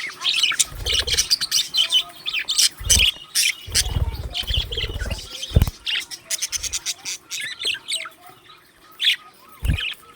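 Budgerigars chirping and chattering in quick, rapid bursts, with a few low thumps mixed in.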